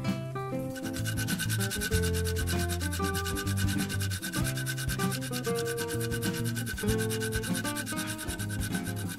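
A sealed cartridge bottom bracket spun by hand around its axle, its bearings giving a fast, even rasping tick that starts about a second in. Background music with bass notes plays throughout.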